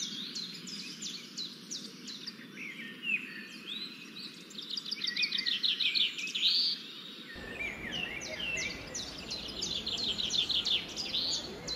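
Several wild birds calling and singing: series of quick, high notes that drop in pitch, with fast trills about five seconds in and again near the end, over a faint steady background noise.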